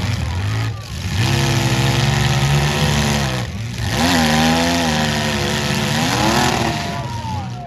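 Demolition derby car engines revving hard in two long surges, each climbing, holding for a couple of seconds and falling away, as the midsize cars push against each other in the mud.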